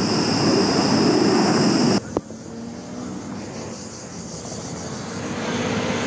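Helicopter with a slung water bucket flying over a forest fire: loud rotor and turbine noise with a steady high-pitched whine, which cuts off abruptly about two seconds in. A click follows, then a much quieter outdoor background with a faint steady hum.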